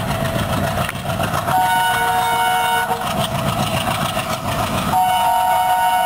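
WDG3A ALCO diesel locomotive approaching at speed, its engine chugging under the rumble of the train, sounding its multi-tone horn twice: a blast of over a second from about one and a half seconds in, and another starting about five seconds in and held.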